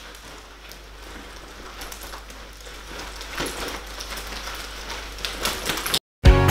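Rustling and small clicks of a leather bag, its strap and buckle, and clothing being handled, growing louder after a few seconds. The sound cuts off suddenly near the end, and music with a beat starts.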